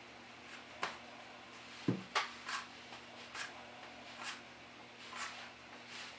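Playing cards being handled and dealt face up onto a cloth close-up mat: a run of soft, short card snaps and slaps about a second apart, with one duller thump about two seconds in.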